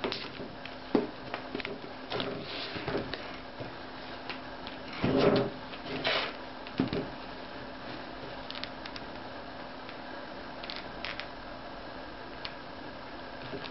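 Handling noise from a large hardcover book being turned over and shifted against a wooden ledge: a few brief rubs and knocks, the loudest about five seconds in, over a steady low hum.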